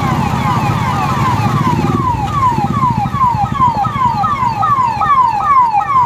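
Police vehicle sirens sounding a fast, repeating falling sweep, about two and a half per second. In the first two seconds more than one siren overlaps, over the low rumble of vehicle engines.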